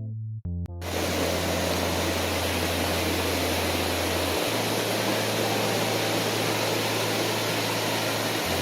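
Waterfall rushing: a steady roar of falling water with a low hum beneath it, starting as piano music cuts off just after the start.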